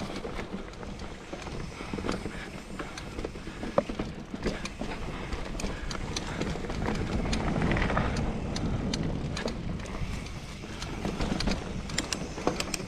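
Mountain bike rolling down a dirt singletrack strewn with dry leaves: steady tyre noise on dirt and leaves, with frequent sharp clicks and knocks of the bike rattling over bumps, and a louder rush of noise around eight seconds in.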